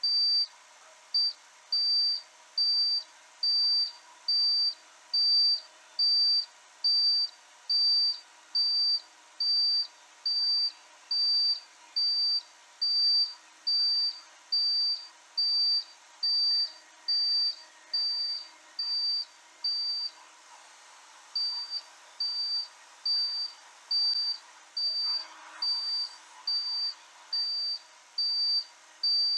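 High-pitched electronic warning beeper sounding in an even on-off rhythm, a little more than once a second, with one short break about two-thirds of the way through, over a faint steady hum.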